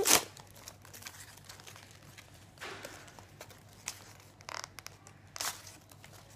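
Foil Pokémon booster-pack wrapper crinkling as the pack is opened and the cards are handled. A sharp, loud crinkle right at the start is followed by scattered short rustles.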